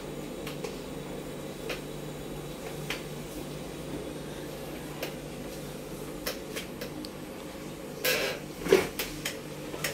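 Tattoo machine running steadily as it works on skin, an even low hum, with a few faint clicks and two louder short noises about eight seconds in.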